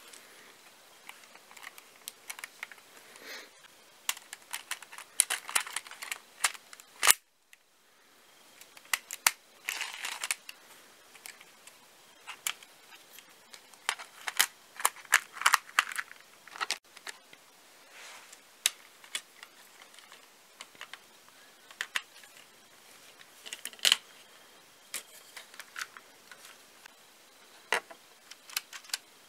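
Plastic clicks and rattles of a LEGO brick-built gun being handled and its parts worked by hand. Sharp clicks are scattered throughout, with a louder snap about seven seconds in and another about twenty-four seconds in.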